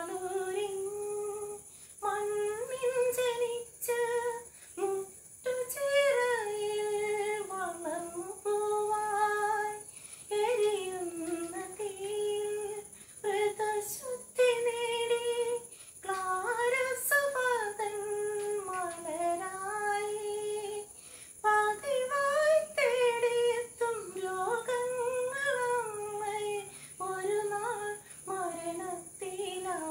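A woman singing a Malayalam devotional song in honour of Saint Alphonsa, unaccompanied, in melodic phrases a few seconds long with short breaths between.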